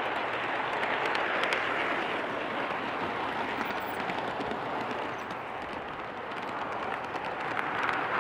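G-scale model freight train rolling on outdoor garden track: a steady rushing noise of the wheels on the rails, with faint scattered clicks.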